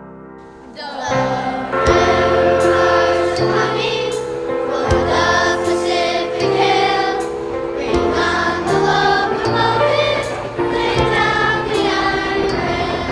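Music: a song sung by a choir over instrumental backing with steady low notes and occasional beats, coming in about a second in.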